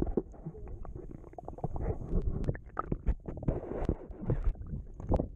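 Muffled underwater pool sound picked up by a GoPro held below the surface: dull churning water with frequent small clicks and knocks.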